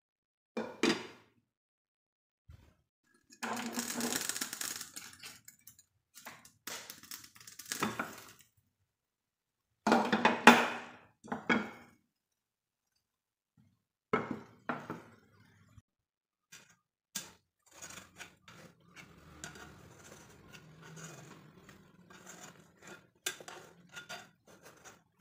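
Cookware being handled: a metal saucepan, its glass lid and a metal spatula give scattered knocks, clinks and clatter in short bursts with silent gaps between them. Softer scraping and clicking follow in the last third as the spatula works around the inside of the pot.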